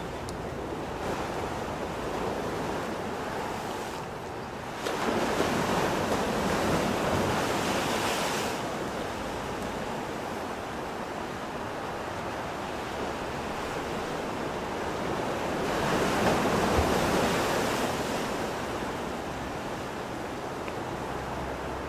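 Ocean waves breaking and washing on the shore. The surf surges loud twice: about five seconds in for a few seconds, and again around sixteen seconds, with a softer steady wash between.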